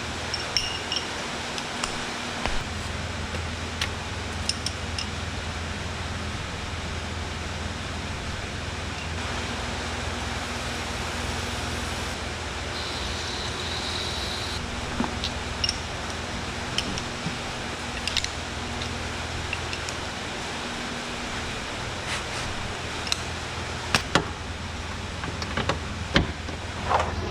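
Hand tools working the rear subframe bolts: a socket on a long extension gives scattered sharp metallic clicks and clinks, over a steady low hum.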